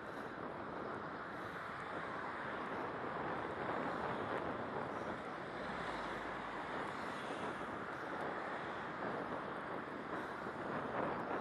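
Steady rushing noise while riding a bicycle along a city street: wind on the microphone mixed with the sound of road traffic.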